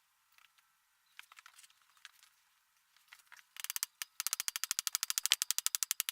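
Rapid, even ratchet clicking, about ten clicks a second, in runs that start about three and a half seconds in and break off briefly twice, as a part is tightened. Before that come a few faint, scattered clicks of handling.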